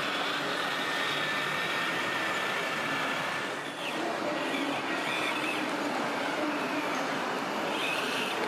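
Electric motors and gearboxes of radio-controlled model trucks and construction machines whining, with shifting high-pitched tones over a steady hall noise.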